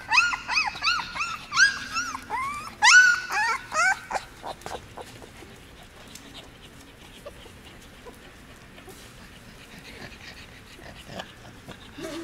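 Young Border Collie puppies, about 17 days old, crying in a rapid run of short, high-pitched whimpers, each rising and falling in pitch. The crying stops about four seconds in, leaving only faint scattered sounds.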